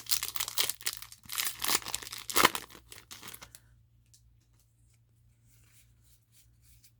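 Foil booster-pack wrapper being torn open and crinkled for about three and a half seconds, then only faint light rustling.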